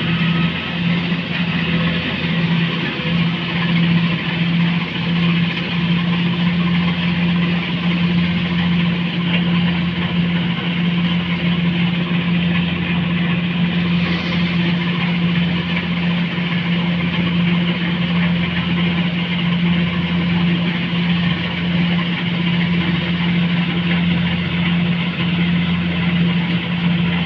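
Engine of a rice-harvesting machine running steadily at constant speed, with a strong unchanging low hum.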